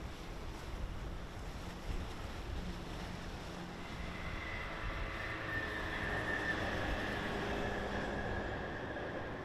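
Electric intercity passenger train approaching and crossing a railway bridge. Its running noise builds from about halfway through, with a steady high whine that is loudest shortly before the end. Wind rumbles on the microphone underneath.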